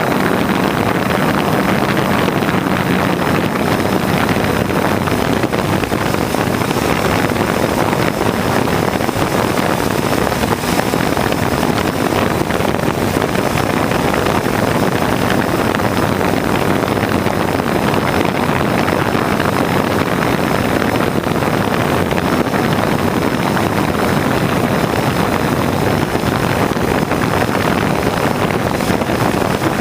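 Steady propeller and motor noise of a small aircraft in flight, with wind on the microphone and a faint high whine; no firework bangs stand out.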